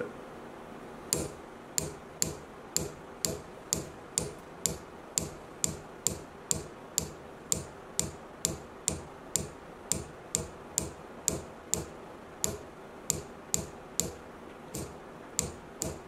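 A sharpened nail tapped with a cast bronze finger hammer, punching texture into carved wood: an even run of sharp taps, a little over two a second, starting about a second in.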